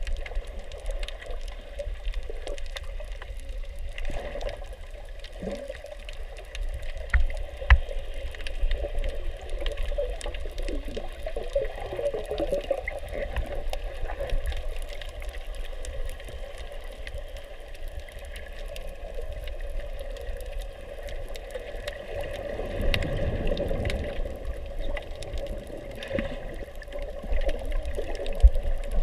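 Underwater water noise heard from inside a camera's waterproof housing: muffled sloshing and bubbling with scattered faint clicks, and a swell of low rushing water about three-quarters of the way through.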